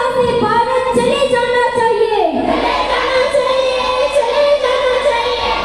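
Slow singing with long held, gently wavering notes over a steady underlying tone.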